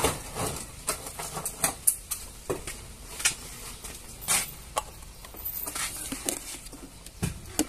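Irregular light clicks and knocks, a few a second, over a faint hiss.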